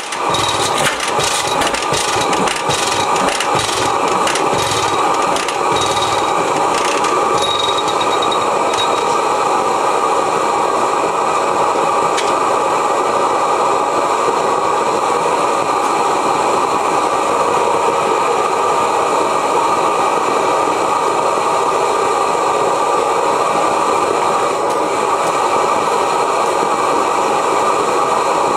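Knocks and rattles from a 1905 Reid hot-tube two-stroke oilfield engine thin out and stop over the first several seconds as the engine slows. A steady rushing noise without rhythm runs under them and then carries on alone.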